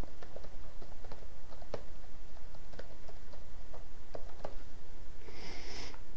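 Computer keyboard typing: irregular key clicks as an email address is typed, over a steady background hiss. A brief rushing noise comes near the end.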